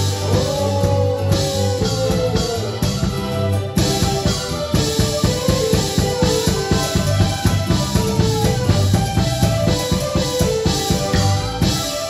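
Taiwanese opera (gezaixi) accompaniment: melodic instruments over driving drums, with the drumming turning into a fast, even stream of strokes about four seconds in.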